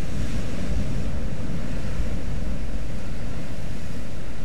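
Sea surf breaking against volcanic lava rocks, with a wave crashing near the start and a steady loud rush of water after it, and wind rumbling on the microphone.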